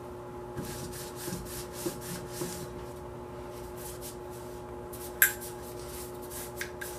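Rag rubbing and handling noises as AR-15 parts are wiped down, with a sharp click a little past five seconds in and two lighter clicks near the end, over a steady hum.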